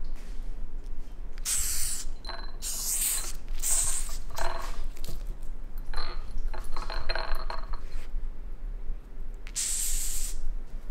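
Madagascar hissing cockroach hissing in short bursts, three in quick succession a second or two in and one more near the end, as a raccoon paws at it in a ceramic water bowl. Between the hisses come scraping and small clinks of the raccoon's handling against the bowl.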